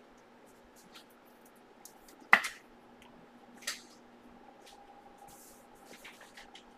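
Light handling noises on a desk: a few short, sharp clicks, the loudest about two seconds in and another a second and a half later, over a faint steady hum.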